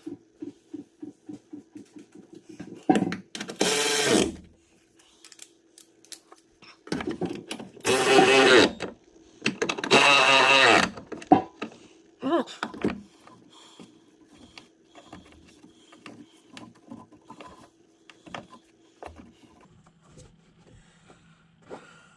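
A ratchet wrench clicking at about five clicks a second, then three bursts of a power tool's motor, each one to two seconds long, with scattered knocks of tools and parts as the degas bottle and battery tray are bolted into the truck.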